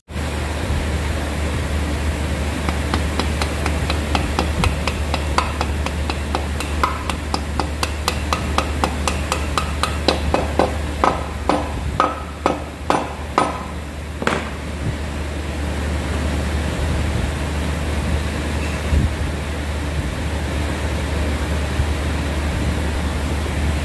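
A fibre-faced hammer tapping a new needle roller bearing into its seat in the aluminium crankcase of a Royal Enfield Bullet UCE engine: a fast run of sharp taps, about two to three a second, for some twelve seconds. After the taps stop, only a steady low hum is left.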